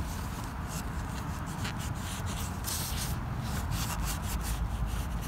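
A cloth rag wiping and rubbing the oil filter mounting surface on the engine, a quick run of scratchy strokes over a steady low rumble.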